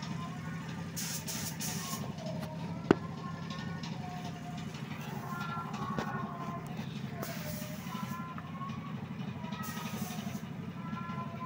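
Engine idling steadily with an even low pulse. A single sharp click about three seconds in, and faint voices in the background.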